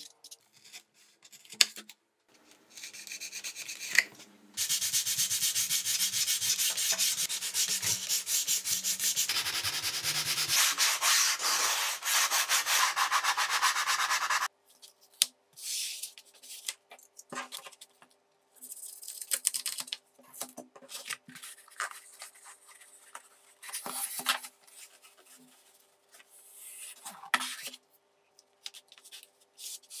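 Hand work on a foam model wing: a continuous rubbing, scraping noise for about ten seconds, then shorter separate rubs and scrapes with pauses between them.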